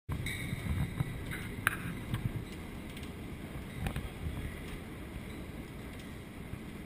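Heavy hailstorm heard from behind window glass: a steady rush of falling hail and rain, with scattered sharp ticks and knocks of hailstones striking the pane.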